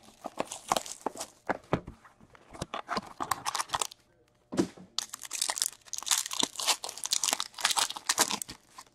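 Foil wrapper of a 2019-20 Upper Deck Ultimate Collection hockey card pack crinkling as it is handled and torn open, in quick irregular crackles with a brief pause about four seconds in.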